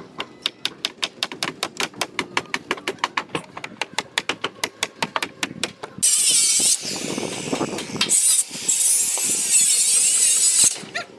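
Hammer blows on a chisel chipping concrete, a quick steady run of sharp strikes about five a second. About six seconds in, an angle grinder starts cutting, loud and high, with two brief breaks, and stops shortly before the end.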